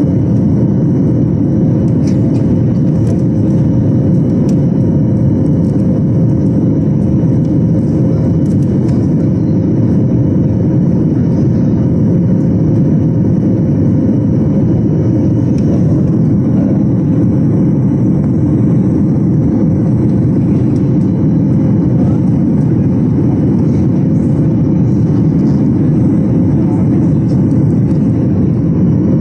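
Steady cabin noise of a Boeing 737 jet airliner in the climb after takeoff: a loud, even rumble of the engines and rushing air with a faint steady hum, unchanging throughout.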